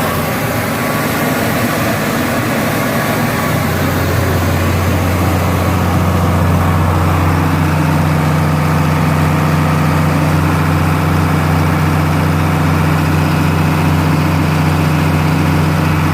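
Large engine running steadily with a deep drone that grows stronger and steadier about three and a half seconds in.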